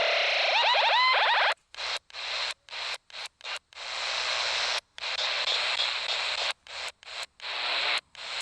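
CB radio receiver hissing with static that cuts out and comes back in short, irregular gaps as it scans the channels. In the first second or so a brief, warbling, distorted signal comes through the static.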